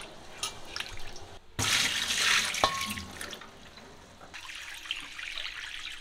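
Water splashing in a cast iron wok as it is washed by hand with hot water. After a break about a second and a half in, a louder rush of water comes, with one sharp clink, then a softer steady pour.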